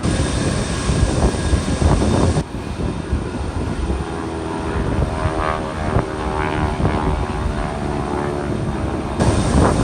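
Propeller airplane engines droning overhead, a steady hum of many tones that comes in about halfway through, over a heavy low rumble.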